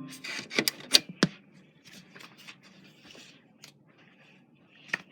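Handling noise: a few sharp clicks in the first second and a half, then faint rustling and scraping, with one more click near the end. A piano note is dying away at the very start.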